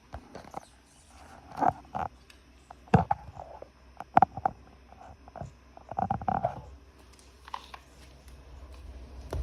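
A few short knocks and clattering rattles, spaced about a second apart, then a low steady hum building up near the end.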